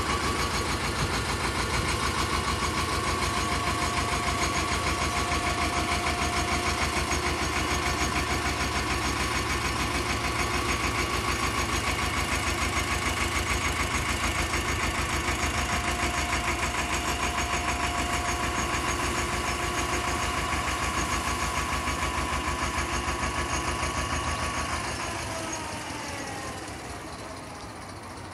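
The National 2DM two-cylinder diesel of the narrowboat Battersea running with a steady, even beat as the boat goes by, dying away near the end.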